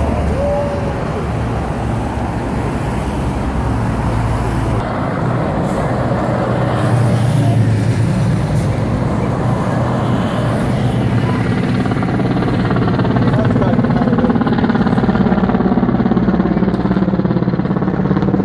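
Motorcade vehicles and traffic passing along a city street. Through the second half a helicopter's rotor beat grows louder as the military helicopter escorting the motorcade flies overhead.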